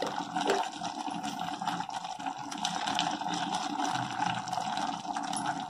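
Steady hiss with faint scattered crackles from mutton pieces sizzling in oil in an aluminium pressure cooker.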